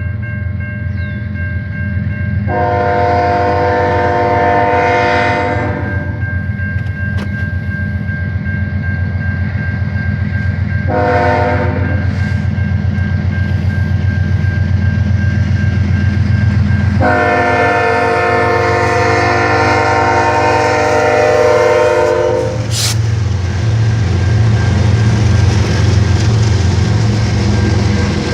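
Multi-note air horn of two CN freight diesel locomotives sounding three blasts: a long one a few seconds in, a short one near the middle, and another long one later. Under the horn the diesel engines run steadily, and the clatter of wheels on the rails grows near the end.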